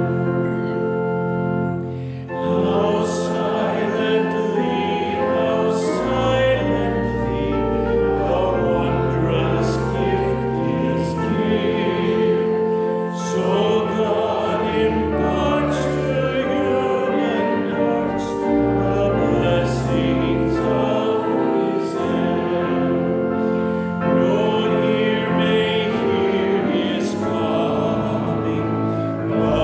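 A hymn sung by several voices over an instrumental accompaniment in held chords, with a short break about two seconds in before the singing resumes.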